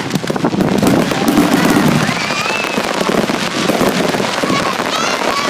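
Fireworks going off in a fast, dense run of bangs and crackles.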